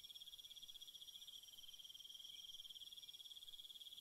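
Faint insect trilling: one steady high-pitched note that pulses rapidly without a break.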